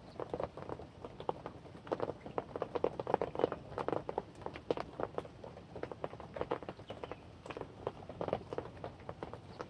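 Rain falling close by, heard as many irregular drop taps, several a second, over a faint steady hiss.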